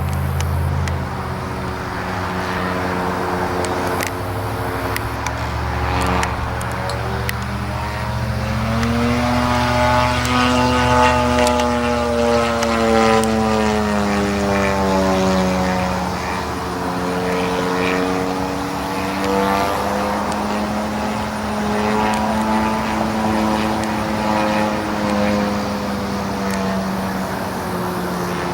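50cc gas engine of a large radio-controlled aerobatic model airplane in flight, running steadily with its propeller; its pitch rises about nine seconds in and falls again a few seconds later.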